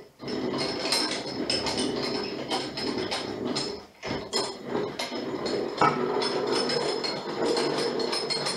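Oiled M6 hand tap cutting a thread into a metal part, driven round by the handwheel of a tapping stand: a continuous run of scraping, creaking metal-on-metal clicks. It breaks off briefly twice, once just after the start and once about four seconds in.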